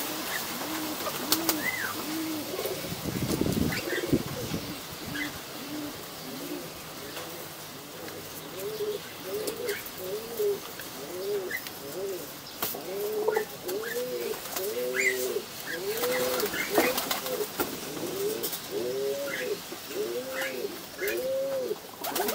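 Domestic pigeons cooing: a run of low coos, each rising and falling in pitch, that come thicker and louder from about eight seconds in. A brief flurry of wing flapping sounds about three seconds in, with a few faint high chirps from small birds.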